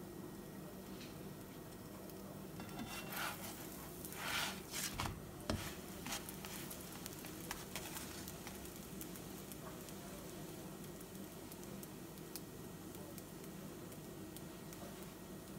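Naan frying in a dry nonstick pan with a quiet steady sizzle and small crackles. About three to six seconds in, a slotted spatula scrapes under the bread several times and flips it over with a soft slap.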